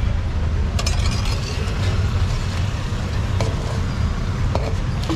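Steady low road-traffic rumble, with a few sharp metallic clinks of a steel ladle against steel pots and plates, a cluster about a second in and single ones later.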